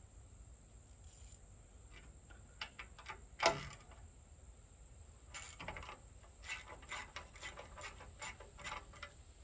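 Hand tools clicking and clinking on metal as the mini bike's engine mount bolts are worked loose with a wrench and socket: one sharper knock about three and a half seconds in, then a run of light, irregular clicks for several seconds.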